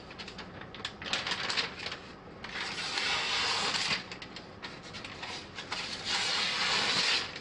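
Steel knife blade scraping, with light irregular clicks and two longer hissing strokes, one about two and a half seconds in and one near the end.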